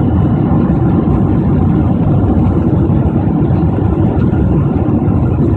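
Boeing 767-400ER's engine and airflow noise heard from inside the passenger cabin: a loud, steady, low-pitched drone with no change.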